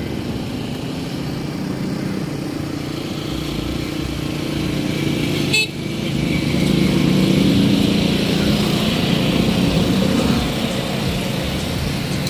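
Road traffic: motor vehicle engines running steadily, with a short horn toot about five and a half seconds in.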